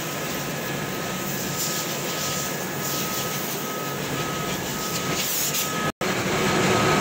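XGJ560 ring-die sawdust pellet mills running: a steady mechanical drone with a faint, steady high whine. The sound breaks off for an instant about six seconds in.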